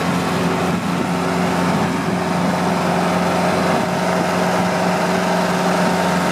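Kubota compact tractor's diesel engine running steadily under load, driving a tractor-mounted snow blower that is throwing snow; a constant, even engine tone over a broad rushing noise.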